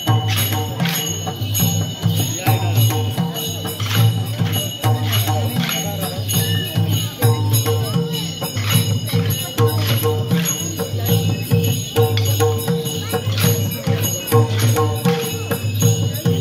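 Traditional Newari festival music for a dance: drums beating a steady, repeating rhythm with bright metallic cymbal and bell clashes over it.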